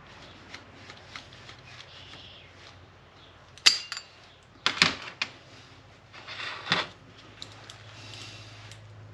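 Hand tools clicking and scraping against a rusty metal turn signal housing while a seized screw is worked loose: a few light ticks, then sharp metallic clicks a little under four seconds in and again near five seconds, and a short scrape that ends in a click past six seconds.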